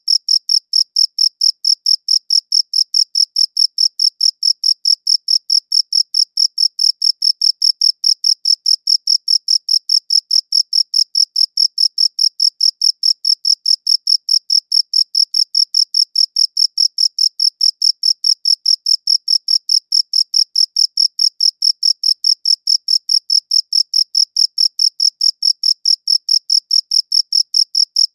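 A cricket chirping steadily, its short high-pitched chirps repeating several times a second in an even, unbroken rhythm.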